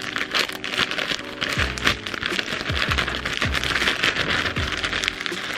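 Thin white plastic packaging bag crinkling and rustling as it is pulled open by hand, a dense crackle throughout. Background music with a deep bass beat plays underneath.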